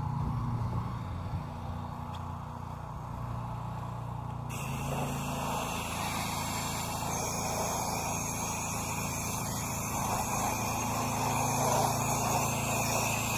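Pressure washer's engine-driven pump running with a steady low hum. About four and a half seconds in, the spray from the wand starts with a sudden steady hiss and keeps going over the hum.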